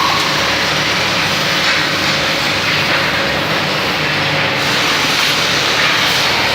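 Hydraulically driven sanding machine for wood flooring running steadily: a loud, even machine noise with a low hum underneath.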